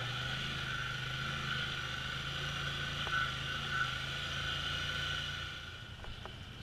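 Polaris Sportsman ATV engine running at low speed while crawling over slickrock: a steady low hum with a steady higher whine above it. It gets quieter about five and a half seconds in.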